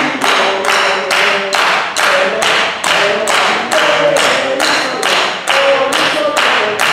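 A group clapping hands in unison to a steady beat, a little over two claps a second.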